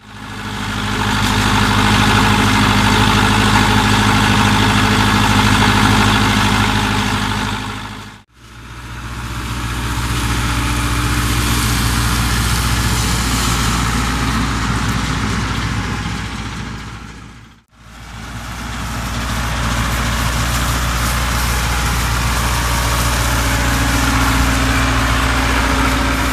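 An engine running steadily at an even pitch, heard in three stretches that each fade out and back in.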